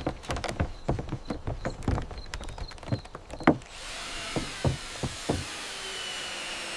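Construction work: irregular knocks and taps, as of hammering on wood. About halfway through, the sound cuts to a steady hiss with a few softer thuds.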